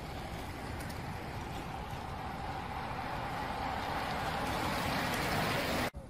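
Steady rushing noise of road traffic that slowly grows louder and cuts off abruptly near the end.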